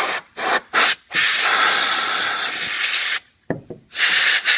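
Can of compressed air spraying into a printer to blow out dust and debris: a few short puffs, then one long blast of about two seconds, a couple of quick spurts, and another burst near the end.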